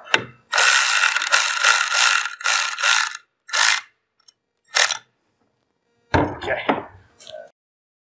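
Cordless electric ratchet running in several short bursts as it tightens the helix bolt on a Polaris RZR secondary clutch held compressed in a spring compression tool. A few heavier knocks follow near the end.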